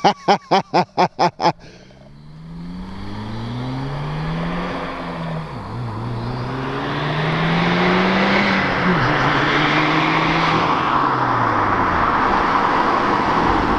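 2017 Subaru WRX's turbocharged flat-four with an aftermarket exhaust accelerating hard. The engine note climbs, drops at gear changes about 5 and 9 seconds in, and grows louder. It opens with a quick run of short chirps.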